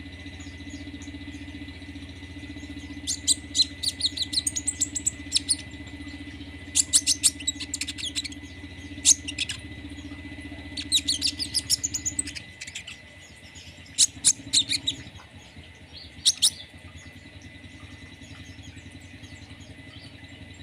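Songbird singing in repeated bursts of rapid, high, rattling notes: the fast 'trotol' style of song prized by Indonesian bird keepers. A steady low hum runs beneath it and stops about twelve seconds in.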